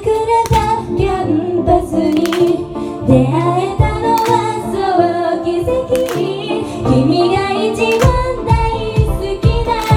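Female idol vocals sung live into handheld microphones over amplified Japanese pop music with a steady beat.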